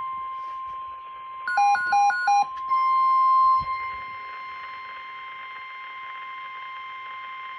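NOAA Weather Radio warning alarm tone: one long, steady, high-pitched electronic tone sounding for the emergency alert test. About a second and a half in, three quick beeps cut in over it, and the tone is louder for about a second just after them.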